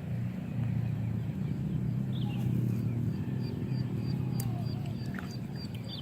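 Outdoor rice-paddy ambience: a steady low rumble with scattered animal chirps. From about halfway through, a faint high chirp repeats about two to three times a second.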